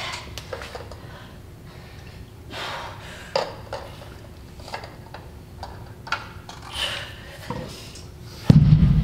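Heavy breaths during dumbbell goblet squats, with a few sharp metal clinks. Near the end, a loud, heavy thud as the hex dumbbell is set down on the gym floor.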